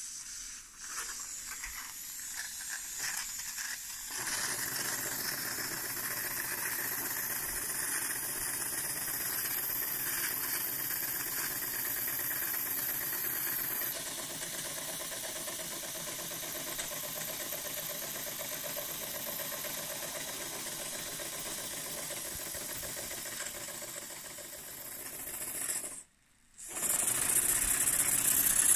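Wilesco D48 twin-cylinder oscillating marine steam engine running fast on live steam: a quick, even stream of exhaust chuffs over a steady steam hiss, with a light mechanical rattle. Near the end the sound cuts out for a moment and comes back louder.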